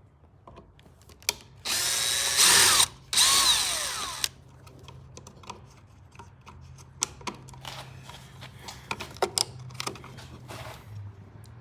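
Cordless drill/driver running in two short bursts of about a second each, its motor pitch sagging as it slows, backing out the screws of an electrical outlet. Light clicks and knocks of handling follow.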